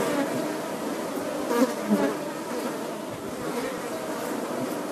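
A swarm of flying insects buzzing: a dense, wavering drone, with a couple of brief louder passes around one and a half to two seconds in.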